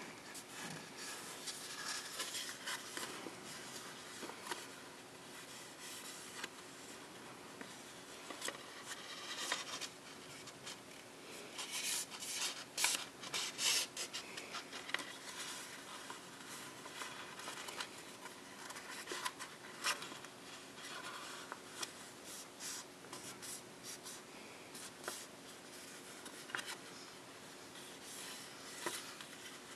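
A sheet of copy paper rustling, sliding and being creased by hand as it is folded, in many short crisp strokes. The loudest cluster of crinkles and scrapes comes about twelve to fourteen seconds in.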